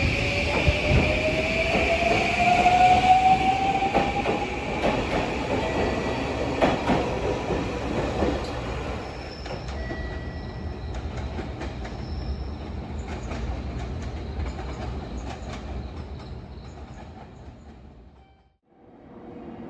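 JR Kyushu 821 series electric train pulling away, its traction motor whine rising steadily in pitch as it gathers speed, over a clack of wheels crossing rail joints. About halfway through, this gives way to quieter station platform ambience that fades out near the end.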